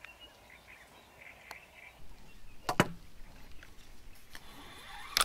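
Handling noise from a fishing rod and spinning reel being worked by hand. A few sharp knocks come through, the loudest about two and a half seconds in, with faint bird chirps near the start.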